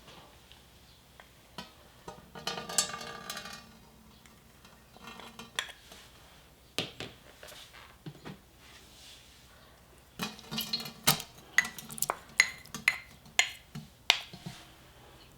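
Kitchen utensils and dishes clinking and knocking, with a short scraping rustle a couple of seconds in and a quick run of sharp clicks in the second half.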